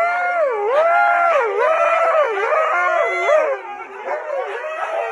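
A husky howling in long wavering calls, its pitch swinging up and down over and over. It grows quieter about three and a half seconds in.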